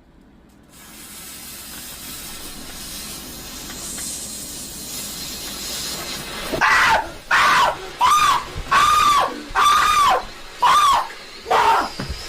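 Lit firework hissing, the spray growing steadily louder over several seconds. From about six and a half seconds in, a run of short pitched cries, each rising and falling in pitch, repeats over the hiss.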